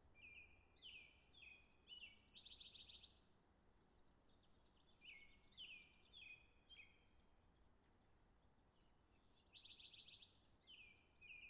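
Faint songbird song: a phrase of short, downward-sweeping whistled notes and a buzzy trill, sung twice about eight seconds apart over a low background hiss.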